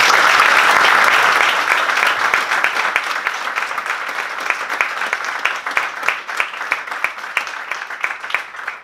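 Audience applauding: a dense round of clapping that gradually thins into scattered individual claps and dies away near the end.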